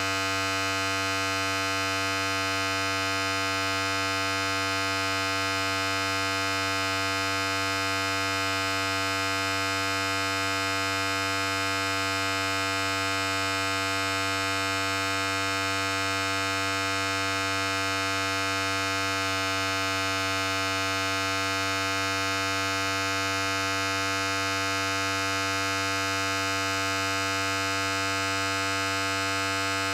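Electric hair clipper running steadily: a constant, unbroken buzz rich in overtones.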